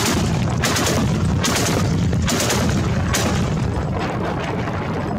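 Gunfire: shots about one a second, each starting sharply and trailing off in an echo, over a steady low rumble.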